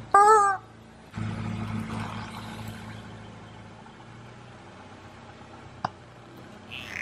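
Rubber screaming-chicken toy letting out one short, loud squawk as a car tyre presses down on it and squeezes the air through its squeaker. It is followed by a steady low hum from the car's engine, with a single brief click about six seconds in.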